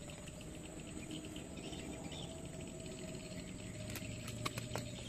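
Faint steady insect chirring, with a few light clicks about four seconds in.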